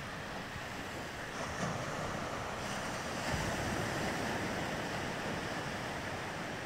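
Small surf breaking and washing up on a sandy beach, a steady rushing, with wind gusting on the microphone a couple of times.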